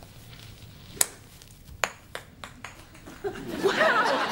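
A golf club strikes a ball with one sharp, ringing ping about a second in, followed by a few lighter clicks. Near the end, people start laughing and talking.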